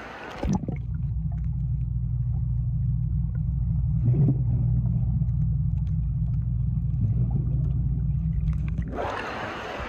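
Sound picked up with the microphone under a swimming pool's water: about half a second in the open splashing noise drops to a steady, muffled low rumble with the highs gone, with a brief stir about four seconds in. Near the end it comes back up into the open, echoing noise of the pool.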